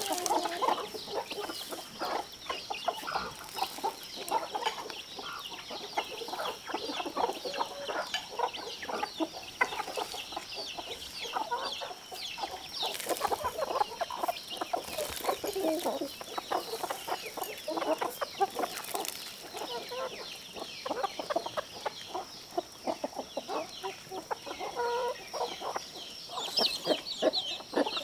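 A flock of domestic chickens clucking continuously as they peck at scattered feed, many short calls overlapping.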